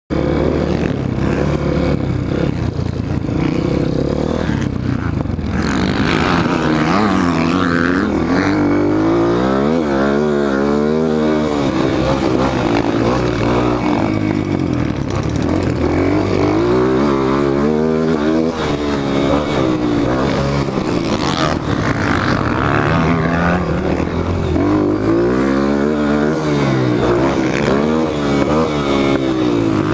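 Honda CRF230F's air-cooled single-cylinder four-stroke engine ridden hard on a dirt track, its pitch climbing and falling over and over through throttle and gear changes. Heard from a helmet-mounted camera, with wind noise over the engine.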